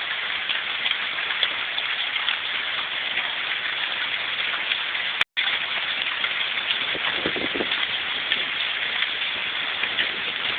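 Heavy rain falling steadily, a dense hiss of drops hitting surfaces; the sound cuts out for an instant about five seconds in.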